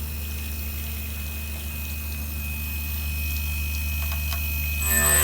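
Steady low mechanical hum with a thin, steady high whine over it and a few faint clicks; music with plucked-string notes comes in just before the end.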